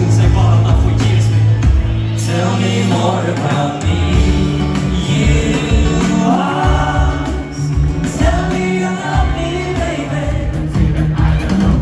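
Pop song performed on stage: male singing over a band with bass and electric guitar, loud and continuous.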